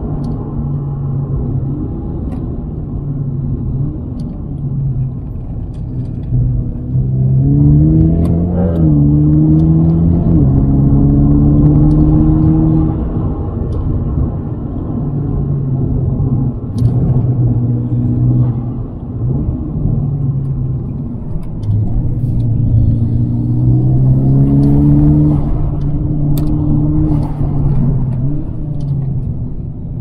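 Mitsubishi Lancer Evo X's turbocharged 2.0-litre four-cylinder heard from inside the cabin, under a constant low road rumble. The engine note climbs in pitch twice under acceleration, about eight seconds in and again about twenty-three seconds in, between stretches of steady running.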